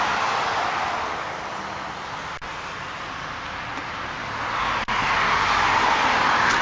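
Road traffic noise from a nearby highway: a steady rush of passing vehicles, easing off in the middle and swelling again near the end as another vehicle goes by.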